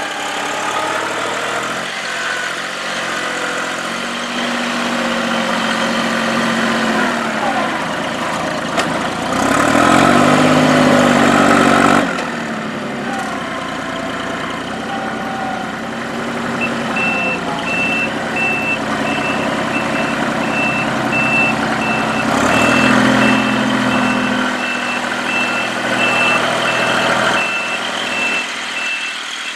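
Kubota L39 tractor loader backhoe's diesel engine working, revving up and down as it pushes dirt. A steady reverse-alarm beeping starts about halfway through.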